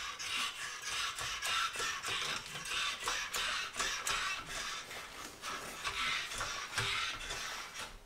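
Irregular metallic clicking, rattling and scraping, a few knocks a second, of a 3-ton floor jack being positioned under the frame and worked.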